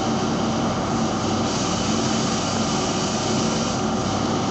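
Steady mechanical hum and whir of a running motor, with a low held tone under an even hiss.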